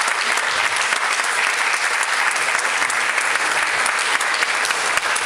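Audience applauding with steady clapping, greeting a competing couple as they are called onto the dance floor.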